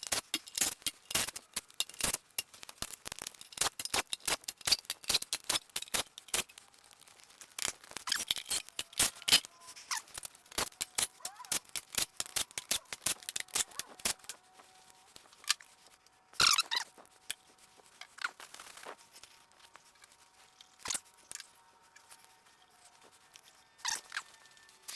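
Hand ratchet clicking in quick runs as the oil pan bolts of a Ford 302 V8 are backed off. The clicks thin out after about 14 seconds, with one louder clatter a couple of seconds later.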